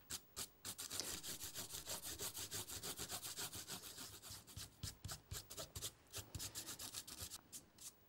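Fingers rubbing dried masking fluid off watercolour paper: faint, quick, repeated rubbing strokes, several a second.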